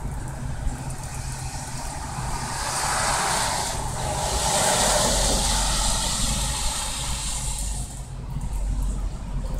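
Tyres of passing traffic hissing on a rain-wet road, swelling about two seconds in and fading away near the end, over steady rain.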